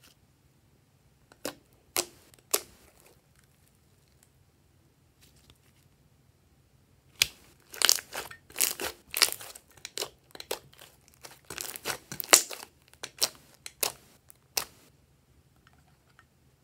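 Soft slime being squeezed and pressed by hand, giving sharp clicks and pops as trapped air escapes: a few single pops near the start, then a dense run of crackling pops in the middle.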